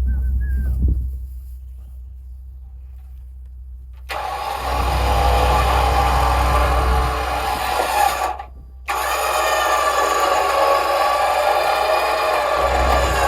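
A motor running steadily with a whine, starting abruptly about four seconds in and cutting out for a moment about eight seconds in before carrying on.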